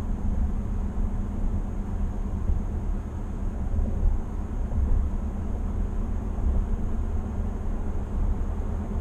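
Steady low rumble of road and tyre noise heard inside the cab of a 2020 GMC Sierra 1500 pickup cruising at highway speed.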